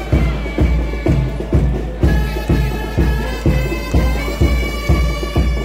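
Military marching band playing a march: a held, pitched melody over a drum beating steadily about twice a second.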